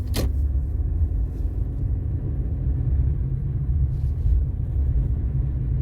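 Steady low rumble of a car's engine and tyres, heard from inside the cabin while driving slowly over a snow-covered road. There is a single sharp click just after the start.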